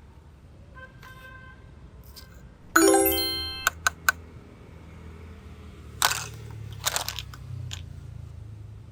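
A bright chime rings out and fades over about a second, followed by three quick clicks. Later come two short crunchy rustles.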